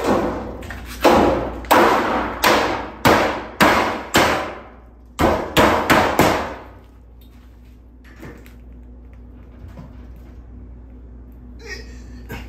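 Claw hammer blows ringing on metal, at a sheet-metal heat shield and its long nails. There are eight steady blows over about four seconds, then after a short pause four quicker ones, then only faint knocks.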